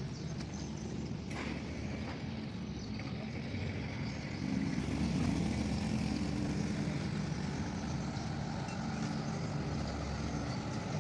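An engine running steadily, a low hum that grows louder about four and a half seconds in.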